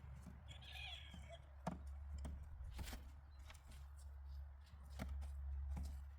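Potatoes being handled during harvesting: a few separate knocks and taps over a steady low hum.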